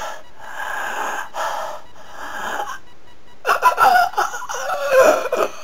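A man gasping in heavy, ragged breaths, then groaning in pain from about three and a half seconds in.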